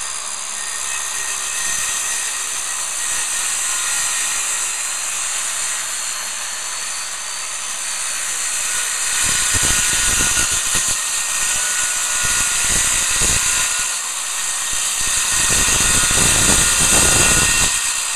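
Circular saw running with its blade cutting along a line through particleboard: a steady high whine throughout. From about halfway through, the sound of the cut grows louder and rougher, easing briefly a few seconds later before picking up again.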